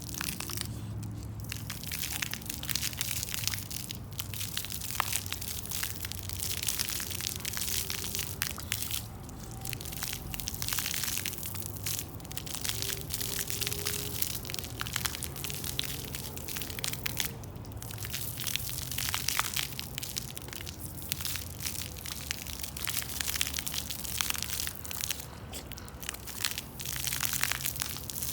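Water splashing and flowing continuously, a dense, crackly stream of many small irregular splashes.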